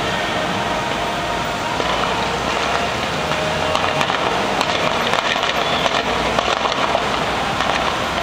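Firecrackers crackling: a dense run of sharp pops over a steady loud din, thickening from about halfway in.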